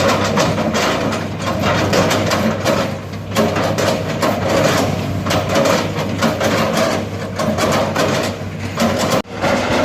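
Excavator engine running under load, with frequent irregular knocks and clanks from the machine working; the sound breaks off abruptly about nine seconds in.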